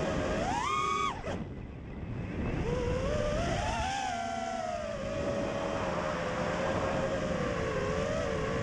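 FPV quadcopter's electric motors whining, heard through its onboard camera with air rushing past. The pitch jumps up about half a second in, cuts out briefly near one second as the throttle drops, climbs back by about four seconds, then holds fairly steady with small throttle swings.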